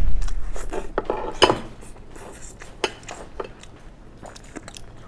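A dull knock, then scattered small clicks and crackles as eggshell is peeled and broken pieces are handled with plastic-gloved hands. The clicks are thickest in the first second and a half and grow sparse after.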